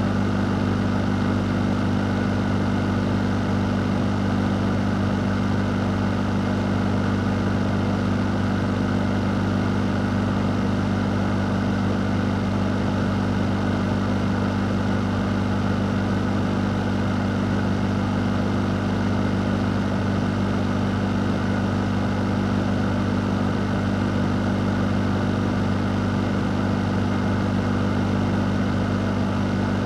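Fan running steadily: a constant low hum of the motor under an even rush of moving air, unchanging throughout.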